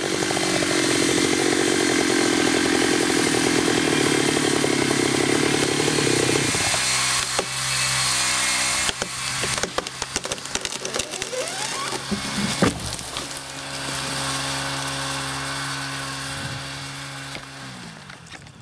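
Chainsaw running at high revs, then dropping to idle about six and a half seconds in, with scattered sharp knocks over the idle. It fades out at the end.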